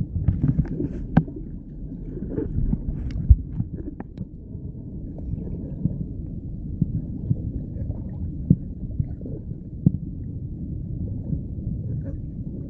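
Muffled underwater sound of a river, heard through a submerged camera: a low rumble with scattered clicks and ticks.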